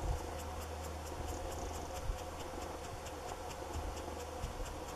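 An insect in the long grass chirping in short, high, dry ticks, about four a second, keeping an even rhythm.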